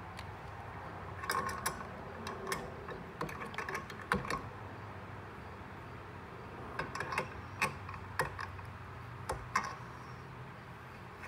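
Small steel nuts, washers and a wrench clicking and clinking against a turbo's spring gate bracket as the hardware is fitted by hand, in short clusters of light metallic taps.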